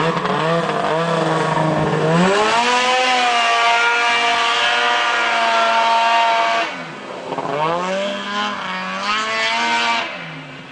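Snowmobile engine with an MBRP aftermarket exhaust can revving hard: it climbs to high revs about two seconds in and holds there for about four seconds, drops off, then revs up again before backing off near the end.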